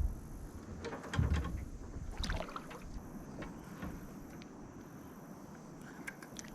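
Wind buffeting the microphone in low gusts during the first second and a half, with a scattered series of light clicks and knocks.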